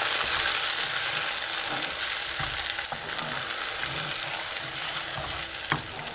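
Onions and freshly added crushed tomatoes sizzling in hot oil in a shallow nonstick pan on medium-high heat, the hiss easing a little as it goes on. A few soft knocks of a spoon stirring through the mixture.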